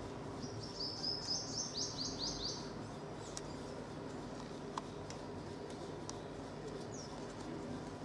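Purple sunbird giving a quick trill of about a dozen high, sharp, downward-slurred notes, about five a second, lasting about two seconds near the start, then a single short high note near the end.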